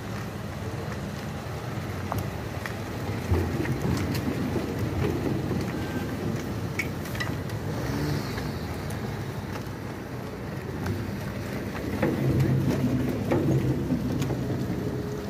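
Cars and pickup trucks driving slowly past at close range one after another, engines running at low revs. There is a single knock about three seconds in, and the sound gets louder near the end as the nearest pickup goes by.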